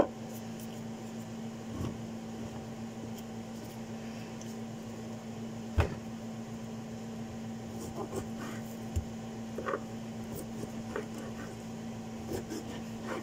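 A knife tapping and knocking on a cutting board every so often as oranges are cut and peeled, the sharpest knock about six seconds in. Under it runs a steady hum.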